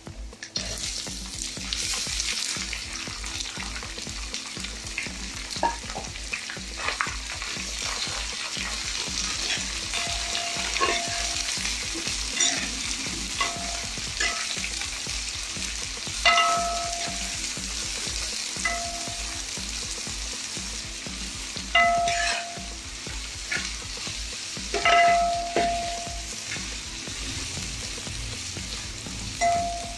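Sliced onions hitting hot oil in a wide aluminium uruli and frying with a steady sizzle as a spatula stirs and scrapes them. The spatula now and then strikes the metal pan, giving short ringing tones.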